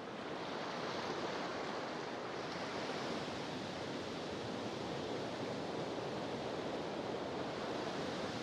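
Soft, steady rushing noise of sea surf, even in level throughout.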